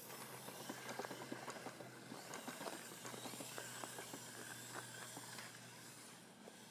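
Footsteps on a lawn scattered with dry leaves, with small rustles and clicks, over a faint steady outdoor hiss and a low steady hum.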